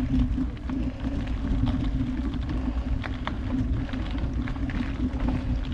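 Mountain bike riding up a dirt trail: a steady low rumble from the tyres and frame, with many small scattered clicks and rattles.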